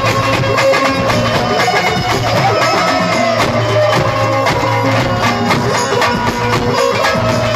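Instrumental Indian folk-devotional music: an Indian banjo (bulbul tarang) plucked with a pick, playing a melody over a steady percussion beat.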